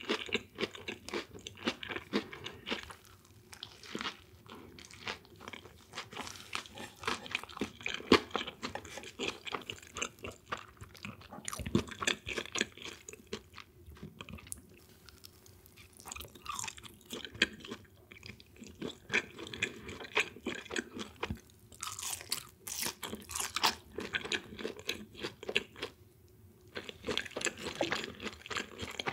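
A person chewing crunchy fried food close to the microphone: a steady run of crisp, irregular crunches.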